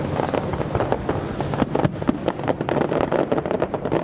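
Fireworks exploding in a dense, rapid run of crackling pops.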